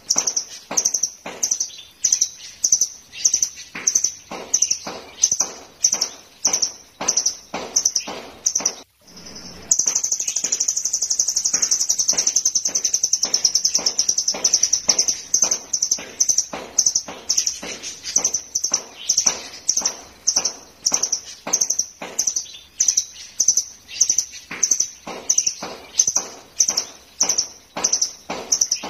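Caged blue nuthatch singing: sharp high notes repeated about twice a second, broken about ten seconds in by a long fast trill lasting several seconds, then the repeated notes again.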